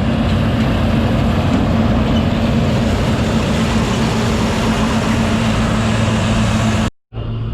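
Heavy farm machinery running steadily at constant speed: a loud engine with a steady low hum under a wash of mechanical noise. It cuts off abruptly near the end.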